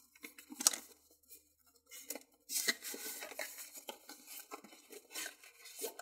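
iFixit toolkit's fabric case being handled and opened: a sharp knock about a second in, then a few seconds of rustling and scraping.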